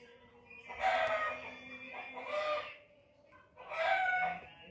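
Rooster crowing twice, two long drawn-out crows, the first starting just under a second in and the second near the end.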